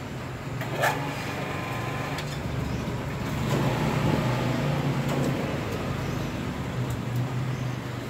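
Steady low mechanical hum, with a single sharp click about a second in.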